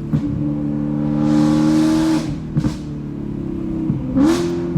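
2013 BMW M3's 4.0-litre V8 with a near straight-piped Akrapovic exhaust under hard throttle, holding a steady pitch for about two seconds before the throttle lifts. A few sharp exhaust pops follow, and the revs climb again briefly near the end.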